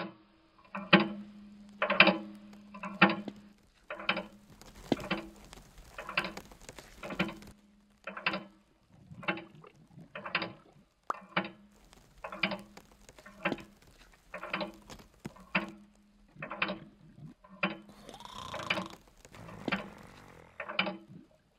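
Evenly paced clicks with a short ring, about one a second, over a steady low hum, with a brief hiss near the end.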